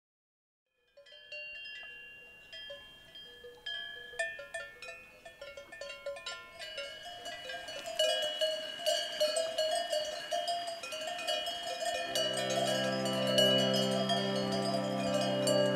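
Many cowbells clanking irregularly, fading in out of silence and growing denser and louder, as if a herd is grazing and moving close by. About twelve seconds in, a steady low hum joins them.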